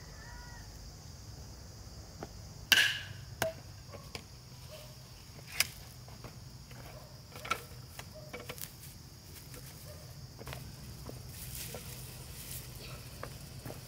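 Crickets chirring steadily in the background, broken by a few sharp knocks and clacks as a plastic mulch roll is handled; near the end the black plastic film rustles as it is unrolled over the soil.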